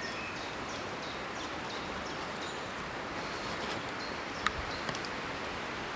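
Steady outdoor background hiss of farmland countryside, with faint short bird chirps scattered through it and a sharp click about four and a half seconds in.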